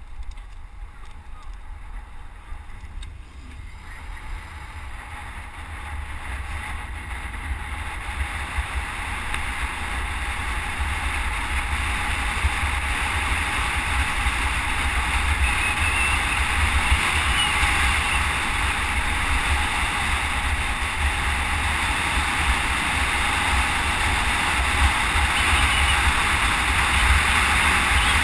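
Wind rushing over a helmet-mounted camera's microphone as a road bike descends, a steady deep buffeting and hiss that grows steadily louder as speed builds.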